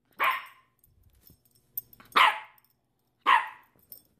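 Yorkshire terrier barking: three short single barks, spaced a second or more apart.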